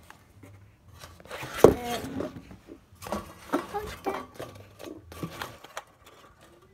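Handling noise of a phone being moved and propped up right at its microphone: rubbing and light knocks, with one sharp knock nearly two seconds in.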